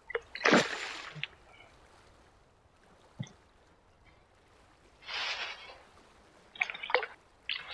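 Water splashing in two short bursts, about half a second in and about five seconds in, with a sharp knock between them and a few light clicks near the end, as a freshly netted fish is handled at a small boat.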